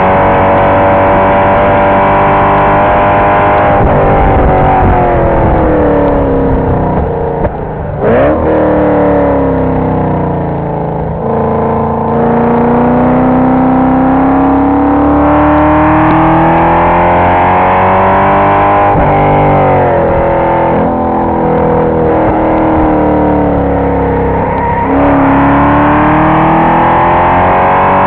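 The 2005 Cadillac CTS-V's 5.7-litre LS6 V8, heard from inside the cabin at track pace. Its pitch climbs steadily as the car accelerates, then falls away as it slows, with sharp drops about 8 seconds in and again near the end.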